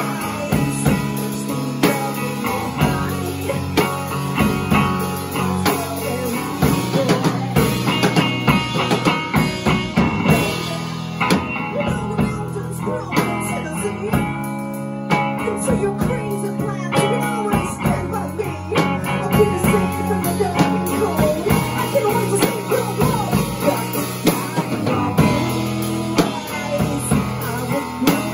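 A live rock band playing: electric guitar and a drum kit hit hard, with a woman singing at the microphone.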